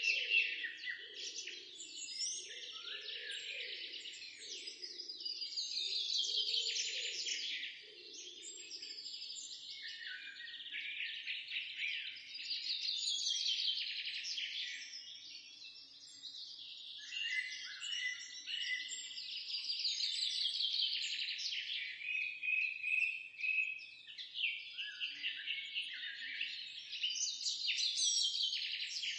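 Recorded birdsong: a fast, chattering song phrase that drops in pitch, repeated every three to four seconds, with other chirps in between.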